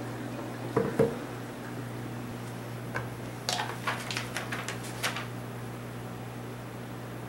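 Kitchenware being handled: a blender jar knocks down hard about a second in, then a quick run of seven or eight light clinks and clicks as a clear bowl and the jar are moved about. A low steady hum runs underneath.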